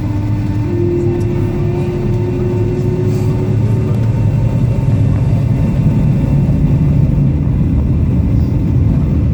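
Jet airliner's engines and rumble heard from inside the cabin, growing a little louder during the takeoff run. A steady whine steps up in pitch about a second in and fades out by about four seconds.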